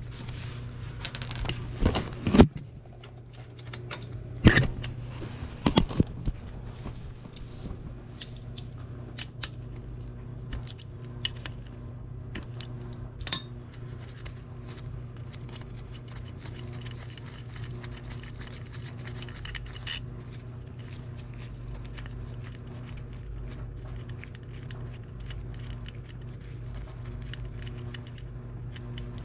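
Hand tools on metal as an 8 mm socket is worked on the two oil-filter cover bolts of a Yamaha YZ450F: a few sharp metal clinks and knocks in the first six seconds, then a run of fast light clicking a little past halfway, over a steady low hum.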